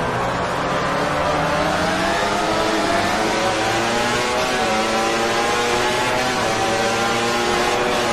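MotoGP racing motorcycle engine at high revs, its pitch repeatedly climbing and dropping as the bike accelerates and slows.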